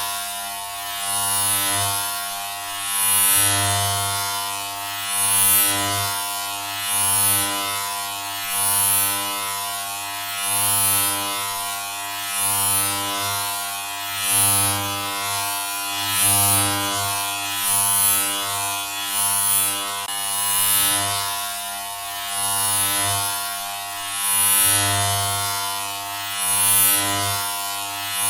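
A steady, low-pitched electric buzz that swells and eases about every two seconds.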